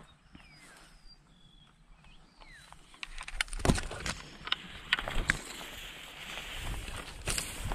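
Faint small-bird chirps in the first few seconds. Then, from about three seconds in, a run of sharp clicks and knocks, the loudest near four seconds in, over a steady rustling hiss.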